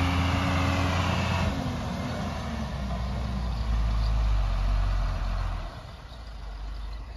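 Heavy diesel truck's engine running with a low drone as the truck drives slowly along the road. The engine note shifts about a second and a half in, and the sound drops away about six seconds in.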